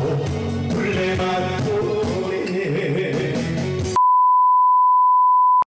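A man singing a trot song into a microphone over backing music, cut off about four seconds in by a loud, steady, single-pitch beep that lasts about a second and a half and stops abruptly.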